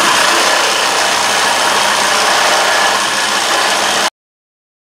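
Corded reciprocating saw with a carbide-tipped Diablo metal-cutting blade running at full speed, cutting into the rusted steel stud of a sway bar end link. The steady saw noise cuts off suddenly about four seconds in.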